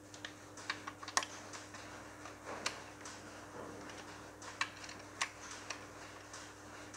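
Ratchet wrench clicking in scattered short runs as the bolts of the lay shaft front support housing on a Massey Ferguson 135 gearbox are tightened. A faint steady low hum runs underneath.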